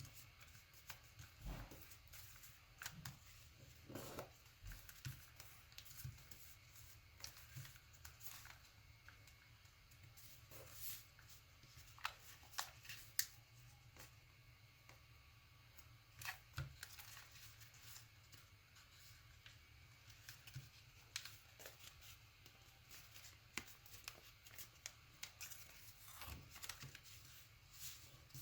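Paper being folded and creased by hand: quiet, scattered rustles and crisp little taps, a few of them sharper.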